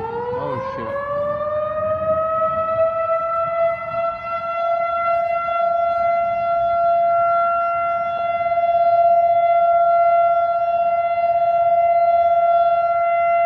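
Outdoor tornado warning siren winding up, its pitch rising over the first couple of seconds, then holding one steady wail: the signal of a tornado warning.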